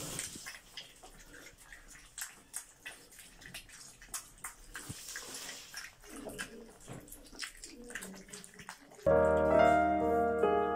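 Several puppies lapping from a shallow enamel basin: a run of quick, irregular wet clicks. About nine seconds in, piano music starts suddenly and is louder than the lapping.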